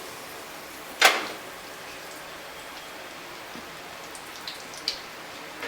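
Breaded potato balls deep-frying in hot oil: a steady sizzle, with a sudden loud burst about a second in and a few small pops near the end.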